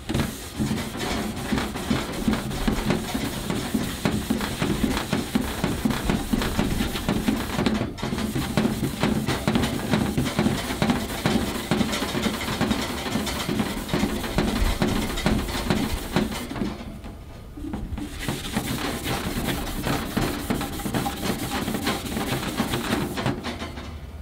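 Red Scotch-Brite pad scrubbed hard back and forth over the stainless steel body of a C4 portable charcoal grill, polishing the metal: a continuous rapid rasping rub. It breaks off for a moment about a third of the way in, and again for a second or so after about two-thirds.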